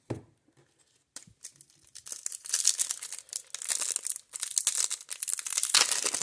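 Foil wrapper of a 1994 Topps Stadium Club baseball card pack crinkling and tearing as it is ripped open by hand. It starts about two seconds in, after a couple of light clicks.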